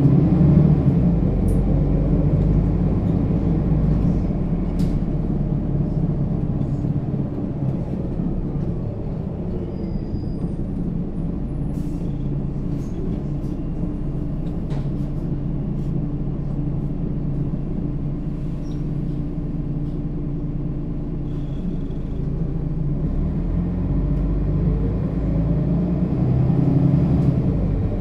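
Mercedes-Benz Citaro O 530 G articulated bus's diesel engine and Voith automatic gearbox running as the bus drives. It is a steady drone that pulls harder about a second in and again near the end, with scattered faint rattles and clicks.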